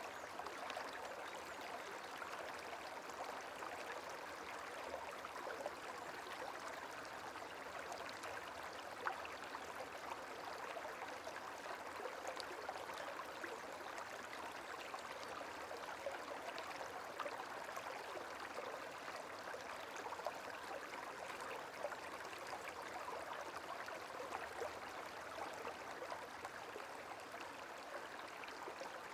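Gentle flowing water, a small stream running steadily with scattered little splashes.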